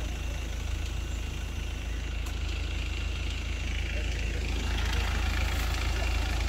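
Car engines idling, a steady low rumble that grows a little louder near the end.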